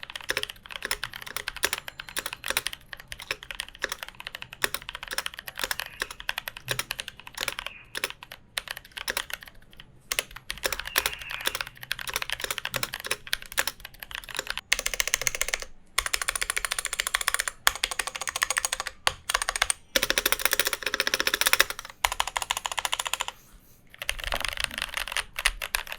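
Typing test on a NovelKeys NK87 aluminum TKL mechanical keyboard in stock form: fast runs of key clacks with brief pauses. The owner judges this stock sound not usable, with the stock screw-in stabilizers sounding poor.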